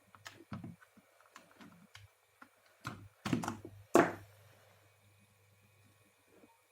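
Irregular sharp clicks and knocks of metal being handled around a refrigerator compressor's terminals after a wire has come loose, the loudest knock about four seconds in, with a faint low electrical hum in between.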